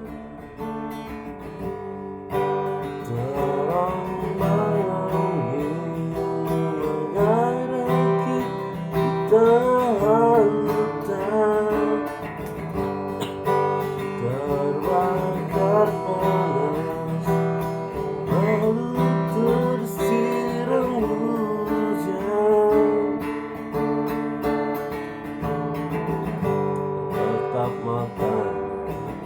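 Instrumental music: a strummed acoustic guitar with a melody line that slides and bends between notes.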